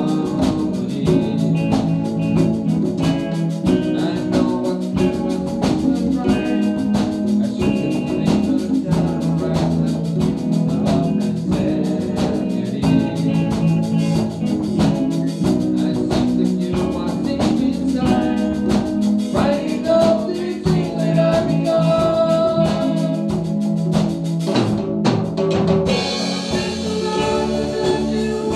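A live band playing together: drum kit, guitars and keyboard, with singing. Near the end there is a brief break, after which the band comes back in with a brighter, cymbal-heavy sound.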